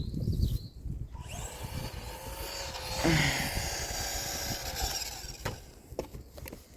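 Remote-control car's small electric motor whining at a steady pitch for about three and a half seconds, then stopping; a couple of sharp knocks follow near the end.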